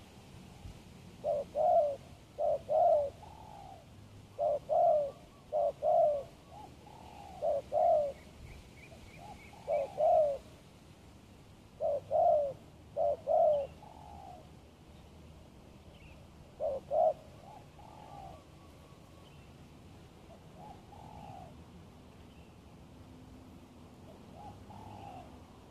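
Spotted dove cooing, a decoy bird calling to draw wild doves: runs of deep, hoarse coos in twos and threes, loud through about the first seventeen seconds, then a few fainter coos near the end. A small bird chirps faintly in the background.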